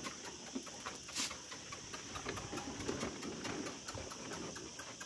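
A pack of dogs eating dry kibble scattered on a concrete floor: a steady run of small crunches and clicks, with one sharper click about a second in.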